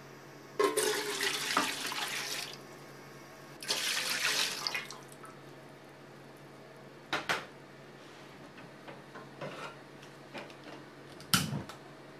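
Sake and mirin poured into an empty metal pot in two pours, the first about two seconds long and the second shorter, splashing into the pan. Later come two short sharp clicks.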